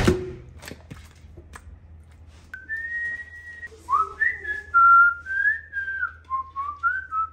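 A man whistling a tune through pursed lips, clear single notes stepping up and down, starting about two and a half seconds in. A few light clicks come before it.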